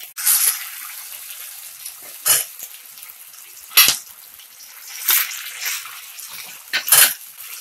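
Coated fish pieces shallow-frying in hot oil in a pan: a steady sizzling hiss broken by about five sharp cracks.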